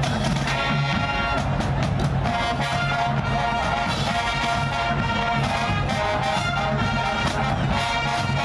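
High school marching band playing: brass section (trumpets, trombones, sousaphones) sounding held chords over a steady drum beat.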